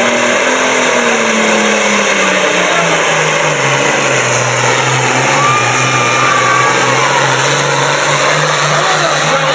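International Harvester 1066 pulling tractor's turbocharged diesel engine running flat out. Its pitch drops over the first few seconds as it takes up the weight of the sled, then holds steady as it pulls down the track.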